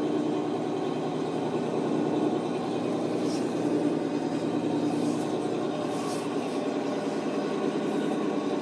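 Steady, unchanging drone of a fishing boat's engine running.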